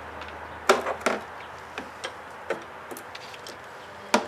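Sharp knocks and clicks of hand work at a car's brake master cylinder: two close together under a second in, a few fainter taps, then two more near the end, over a steady low hum.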